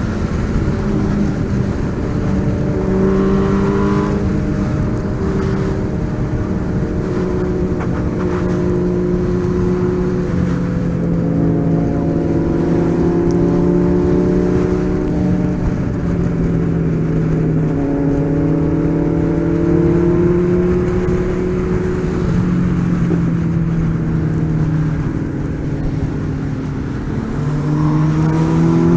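Car engine running under way, its pitch slowly rising and falling with the revs.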